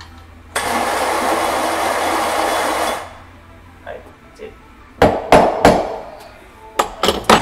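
Compak espresso grinder running for about two and a half seconds, flushing out grounds after a grind-size change. Then several sharp knocks in two quick groups as the portafilter is banged against a knock box to empty it.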